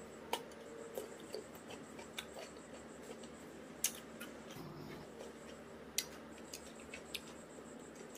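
Crunching and chewing of raw cucumber in a person's mouth: sharp crisp crunches about once a second, the loudest about four seconds in.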